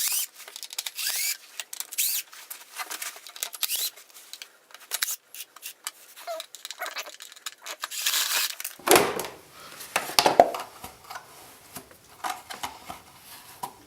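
Rustling, crinkling and irregular clicks of a moped's air filter and its plastic air box being handled and taken apart, with a few heavier knocks about nine to ten seconds in.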